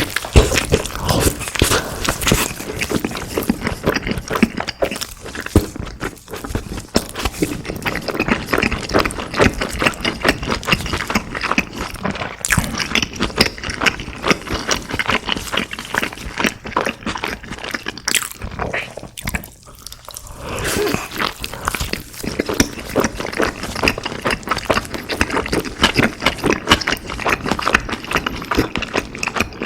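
Close-miked eating: steady crunchy, wet chewing of fried food with many small crackles, easing briefly about twenty seconds in before picking up again.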